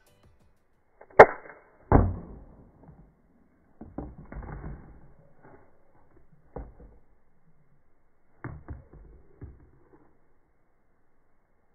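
Homemade spring-loaded mini rifle firing with one sharp snap about a second in, followed by a heavier thud and the light clatter of plastic cups being knocked over. A few more scattered soft knocks and clatters follow.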